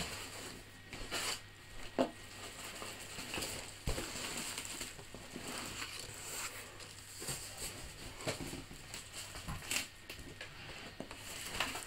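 Clear plastic wrapping crinkling and cardboard box flaps rustling as a plastic-wrapped carry case is lifted out of a cardboard box, with a few dull knocks of the case and box.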